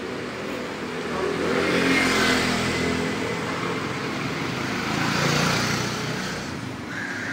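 Motor vehicles driving past on the street, one after the other: engine noise swells and fades about two seconds in, then again around five seconds in as a motor scooter goes by.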